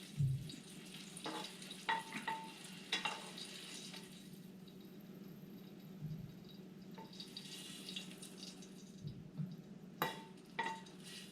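Sausage sizzling faintly in a frying pan over a steady low hum, with a few sharp clinks of a utensil against the pan in the first three seconds and twice more near the end.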